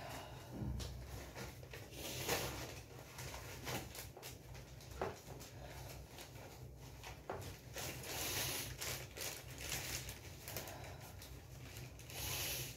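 Thin paper slips rustling and crinkling as a stack of them is handled and leafed through, with small irregular taps and a few louder rustles.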